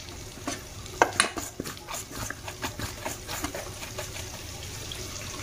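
Light clicks and knocks of a spoon and floury fingers against stainless-steel bowls as battered tofu balls are rolled in flour, over a faint steady hiss. The knocks are clustered in the middle and thin out near the end.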